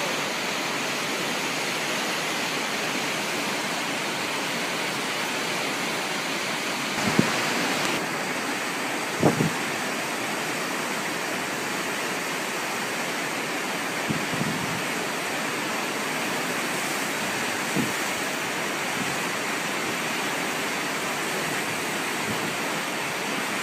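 River rapids rushing in a steady wash of whitewater noise. Four brief low thumps come and go along the way.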